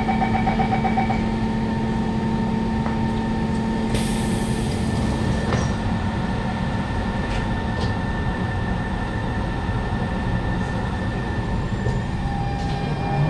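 Cabin of a Siemens C651 metro train at a platform: steady equipment hum, a short run of beeps at the start and a brief hiss of air about four seconds in. Near the end, as the train starts to move, the traction motors begin a rising whine.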